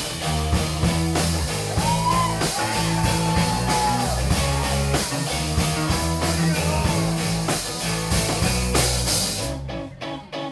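Live rock band playing: drums, bass and guitars together at full volume, with a high melody line sliding up and down early on. Near the end the full band drops out, leaving a guitar picking a quieter, evenly repeated pattern.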